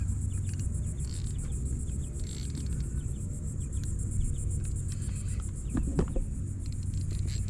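Insects droning steadily with a fast, even pulsing, over a continuous low rumble. A couple of sharp knocks sound about six seconds in.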